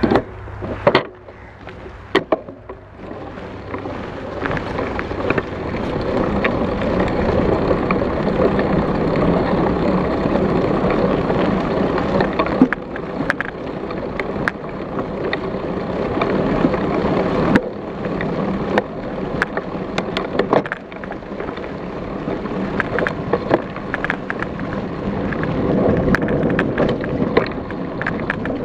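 Mountain bike rolling over a trail thick with dry fallen leaves: a steady rush of tyres through the leaves, broken by frequent sharp knocks and rattles from bumps. It is quieter for the first few seconds, then the rush builds.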